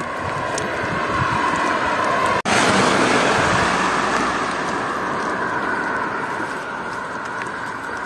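Traffic noise of a car driving past on the road, swelling and then slowly fading. The sound cuts out for an instant about two and a half seconds in.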